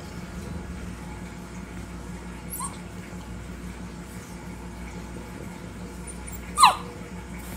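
A dog gives one short, high yelp that falls sharply in pitch, about two-thirds of the way through, after a faint squeak earlier on. A steady low hum runs underneath.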